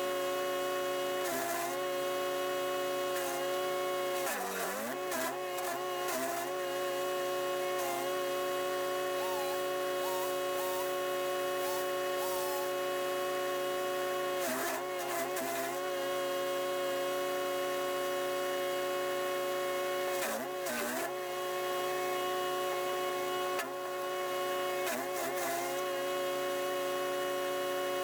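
Chipease D1500E wood chipper's 420cc four-stroke engine running steadily at high speed. Several times its pitch dips briefly under load, each time with a burst of noise as branches are fed in and chipped.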